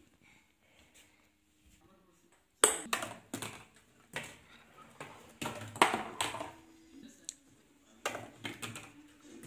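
Plastic ping-pong ball rolling and clattering through cardboard chutes, making a run of light, irregular knocks and taps that starts about two and a half seconds in.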